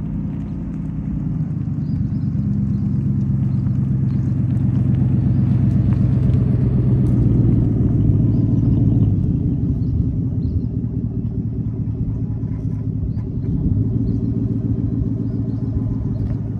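A 2021 Ford F-150's loud 5.0-litre V8 running at low speed as the truck drives across the lot and past. It gets louder as the truck comes closer, eases off a little and swells once more near the end.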